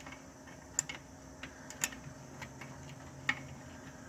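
A hand wrench being worked on a tight starter bolt: a few sharp metallic clicks at irregular intervals, the loudest about three seconds in.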